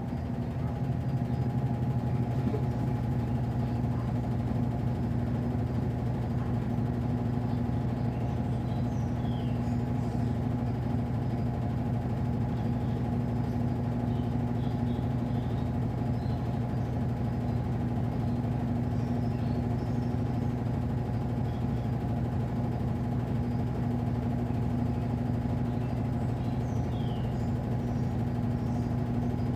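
Midea Wave-Agitator top-load washing machine running with a steady motor hum, building up over the first couple of seconds and then holding level.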